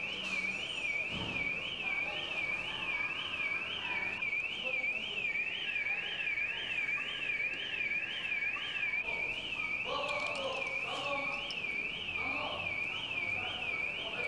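Car alarm sounding: a high tone sweeping rapidly up and down, about twice a second. A second, lower steady tone joins it for a few seconds in the middle.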